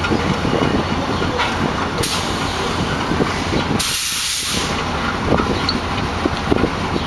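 GE C30-7 diesel locomotive's V16 engine running with a steady low rumble. About two seconds in, a loud hiss of compressed air venting starts and lasts about two and a half seconds, strongest near its end.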